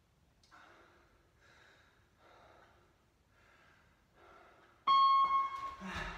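A man breathing hard while he rests between exercises, with a heavy breath about once a second. About five seconds in, a workout interval timer sounds a loud beep-like tone lasting about a second, signalling the start of the next exercise. A low thud follows near the end.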